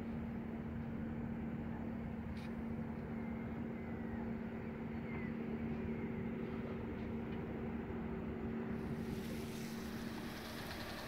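A yacht's inboard engine running steadily, a constant low hum, while the boat motors slowly across calm water. A hiss joins near the end.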